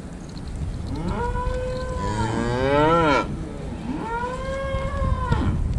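Cattle mooing: two long moos. The first rises in pitch, is the loudest, and breaks off abruptly about three seconds in. The second follows a moment later and rises, then falls.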